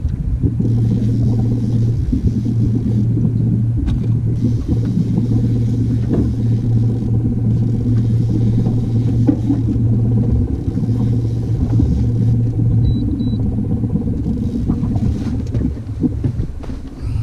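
Boat's outboard motor running steadily at low speed, a constant low hum with rumble under it.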